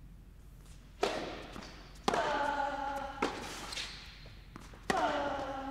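Tennis rally on an indoor court: racket strikes on the ball about once a second, echoing in the hall. Two of the shots come with a drawn-out player's grunt that falls in pitch.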